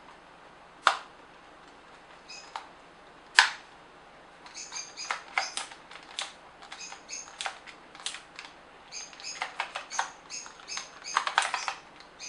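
Plastic housing of a Nikon SB900 flash being handled and worked in the hands: two sharp clicks in the first few seconds, then a quick run of clicks and squeaky plastic creaks.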